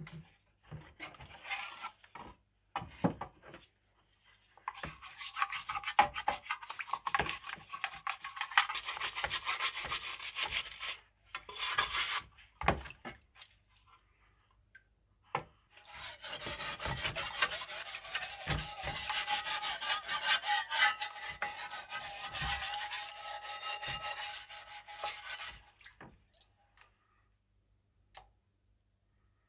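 Scrubbing a wet metal tin by hand to lift paint loosened by electrolysis: fast scrubbing strokes in two long spells, with a few short scrapes before them.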